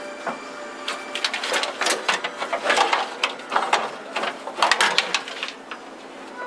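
Wiring harness and its plastic bulb sockets scraping and clacking against car-body sheet metal as the harness is pulled out: a quick, irregular run of clicks and rustles, heaviest in the middle.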